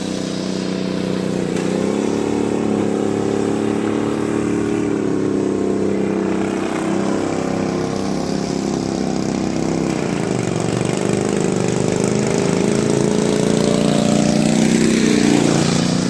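Riding lawn mower engine running hard, its pitch shifting up and down, dipping about ten seconds in and then climbing again.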